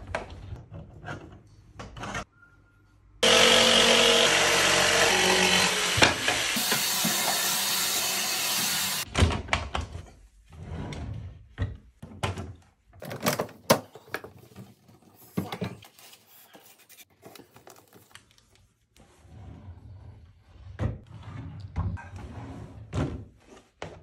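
A loud electric motor runs steadily for about six seconds near the start. Around it are many separate wooden knocks and thunks as the chipboard drawers of an IKEA MALM chest of drawers are handled and slid in and out.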